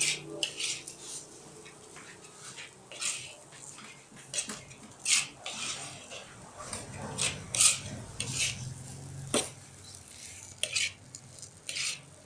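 Metal spatula scraping and clanking against a steel wok as fried rice is stirred and turned, in irregular strokes about once a second, with a sharper knock near the end.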